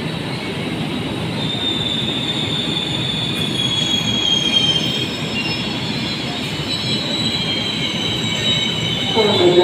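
Passenger train rolling into a station and slowing nearly to a stop: a steady rumble of the cars with thin, high wheel squeal, one tone sliding slowly down in pitch. A voice starts right at the end.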